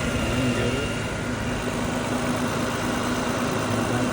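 2009 Infiniti G37's 3.7-litre V6, freshly installed, idling steadily as it warms up.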